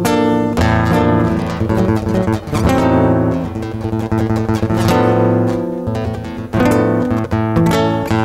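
Solo nylon-string classical guitar played fingerstyle: a plucked melody over ringing bass notes, with full strummed chords about every two seconds.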